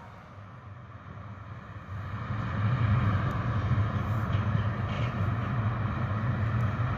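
Steady low rumble of traffic: a freight train of loaded timber wagons rolling past, together with cars on the road. It grows louder about two seconds in and then holds steady.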